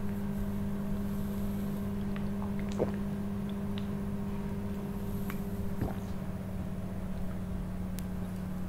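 Steady low electrical-sounding hum with a few faint clicks.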